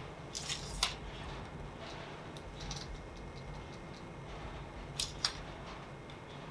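Sharp mechanical clicks from a fishing reel as it is handled and cranked: a quick cluster about half a second in, a lighter click later, and two close clicks about five seconds in, over a low steady hum.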